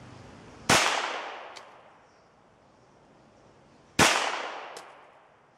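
Two shots from a full-size 1911 pistol in .45 ACP, fired one-handed about three seconds apart, each ringing out and fading over about a second. A faint tick follows each shot.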